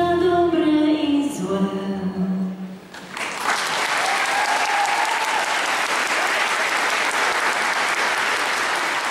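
The last held notes of a sung waltz with its accompaniment end about three seconds in. A theatre audience then breaks into steady applause that carries on.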